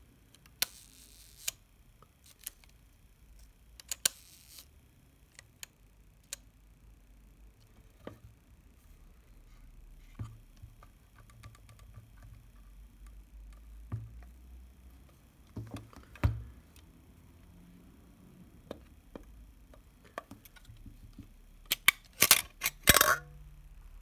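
Rolleiflex Standard twin-lens reflex camera being worked by hand: scattered small mechanical clicks and handling noise, then a quick run of louder metallic clicks near the end as the folding viewing hood is opened.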